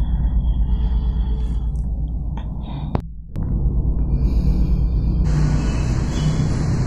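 Ominous horror-movie sound design playing on a TV: a low, pulsing rumble under a noisy haze. It drops out briefly about three seconds in, and a hiss joins it from about five seconds in.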